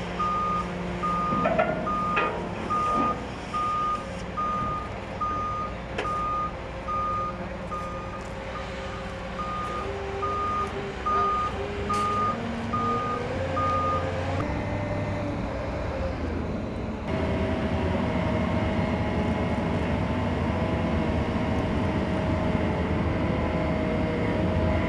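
Backup alarm on heavy construction equipment beeping steadily, a little over once a second, over the drone of large diesel machinery, with a few sharp metal knocks. The beeping stops about halfway through, leaving the machinery running.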